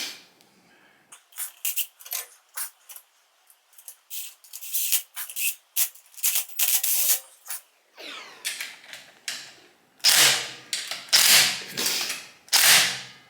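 Hand ratchet wrench clicking in many short quick strokes, then several longer, louder rasping strokes about a second apart, as a fastener is run down on the motorcycle.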